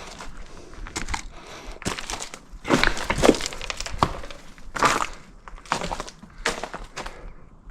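Irregular crunching and cracking, like footsteps and scrambling over brittle ground with twigs and loose stones, loudest about three and five seconds in.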